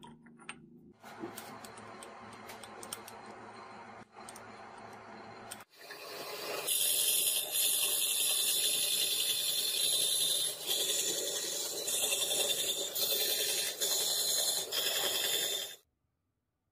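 Band saw cutting brass plate: a loud, steady, hissing cut that builds about six seconds in and stops abruptly near the end. Before that, a quieter machine runs for a few seconds.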